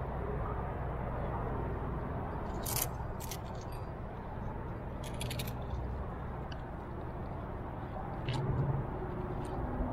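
Climbing gear clinking: carabiners and protection on a climber's harness jingling in short bursts about three seconds in and again around five seconds in, with a last clink near the end, over a steady low background rumble.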